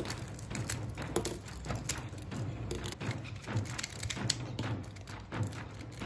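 Plastic Rubik's cubes being handled and turned: irregular clicks and taps as layers snap round and pieces knock together.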